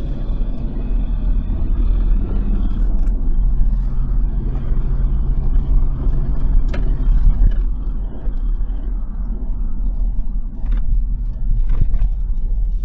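Cabin noise of a moving Land Rover Discovery 2 Td5: the five-cylinder turbodiesel running with a steady low road rumble. The engine note eases off about two-thirds of the way through, and there are a few light knocks.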